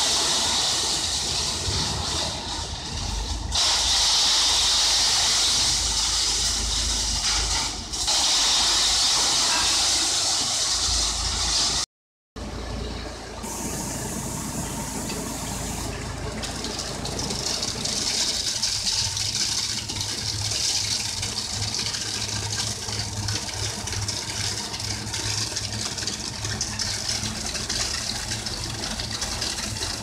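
Self-loading concrete mixer running, its engine noise mixed with a loud hiss. It cuts out for a moment about twelve seconds in, then runs on steadily with a low hum.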